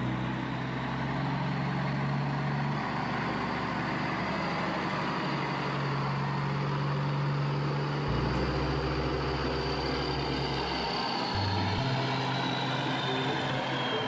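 Animated tracked excavator's engine sound effect, running steadily as the machine drives.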